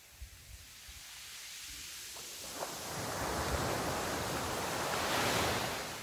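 Small waves breaking on a shingle beach. The rush of surf swells over a few seconds, is loudest near the end, then begins to ease.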